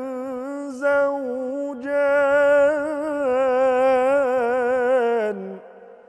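A man's unaccompanied voice in Quranic recitation, holding long ornamented notes with a wavering pitch on the verse's closing word, zawjan. The voice stops a little after five seconds and its echo dies away.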